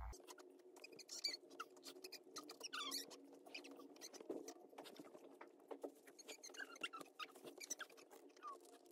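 Faint rustling and soft clicks of baby clothes being pulled on, with scattered short, high squeaks from a baby.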